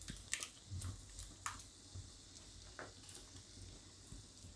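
A silicone spatula stirring thick yogurt and gram-flour gravy in a metal kadai over a very low flame: a few faint, short scrapes and dabs against the pan.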